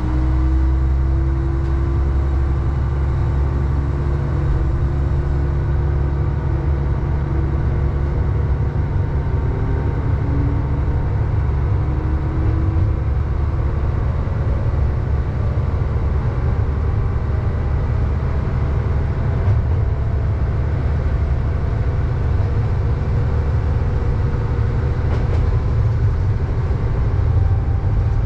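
Diesel railcar running under power as it gathers speed: a steady low engine drone, with a whine above it that levels off and fades out after about twelve seconds, and the wheels running on the rails.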